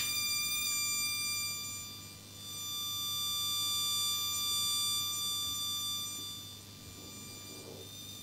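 A buzzing tone of about 1 kHz from a transistor multivibrator's square wave, heard through an amplifier on the detector branch of a Wheatstone bridge comparing two inductors. Its volume dips, swells and then drops to a low level near the end as the balance potentiometer is turned toward the null.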